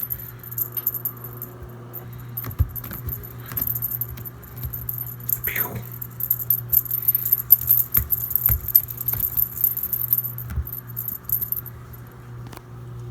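Washing machine running with a steady low hum, over which come irregular light jingling, rattling and clicking sounds.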